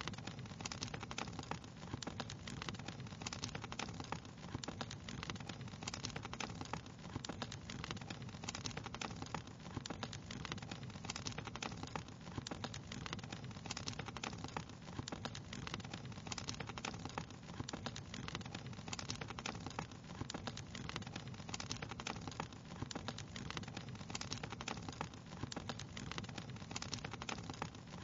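Wood fire crackling steadily: dense, irregular small pops and snaps over a soft hiss, with a low rumble of the flames underneath.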